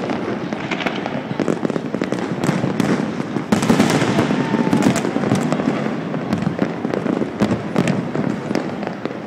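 Many fireworks displays going off at once across the city: a dense, continuous crackle of overlapping bangs and pops, a little louder from about three and a half seconds in.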